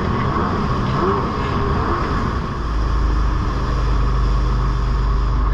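Jet ski engine running at speed with water rushing past the hull, a steady noise whose low rumble grows stronger about halfway through.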